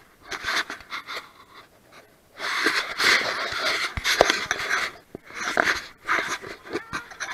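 A person breathing hard and close to the microphone, in uneven, noisy panting breaths with short pauses between them.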